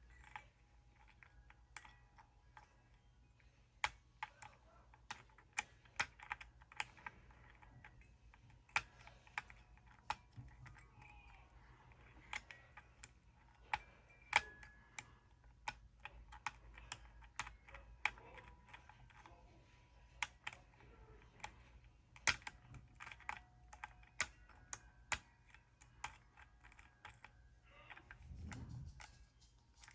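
Lock picks working the pins of a Paclock 95G five-pin padlock: irregular small metallic clicks and taps as the pins are picked, over a faint steady low hum.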